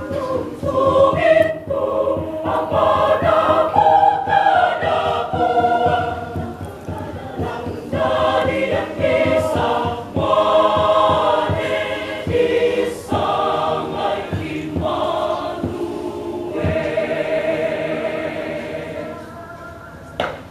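Church choir, mostly women's voices, singing in parts, with a long held chord late on before the singing grows quieter.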